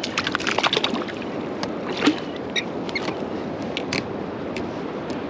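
Water splashing and sloshing, with a quick flurry of splashes in the first second and a single louder splash about two seconds in, over a steady wash of wind and surf.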